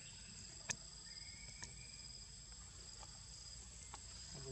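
Faint, steady high-pitched insect chorus, with a few soft clicks, the sharpest about two-thirds of a second in.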